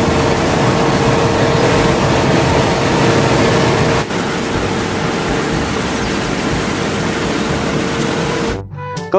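Loud, steady rushing noise with a steady hum through it, like a running machine or vehicle. It shifts slightly about four seconds in and cuts off sharply near the end.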